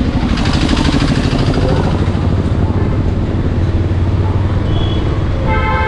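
Bajaj Pulsar 220's single-cylinder engine running steadily as the motorcycle rides slowly through city traffic, with a low hum. A vehicle horn honks briefly near the end.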